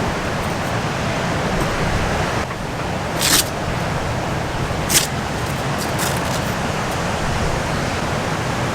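Steady rushing of strong wind and ocean surf, with two short, sharp hisses about three and five seconds in.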